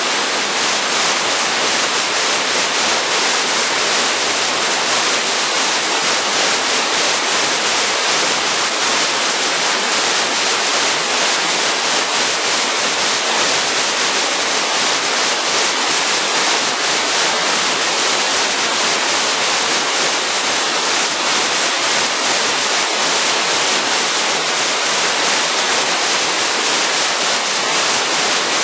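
Imo-daki waterfall pouring: a steady, loud rush of falling water, mostly hiss with little low rumble.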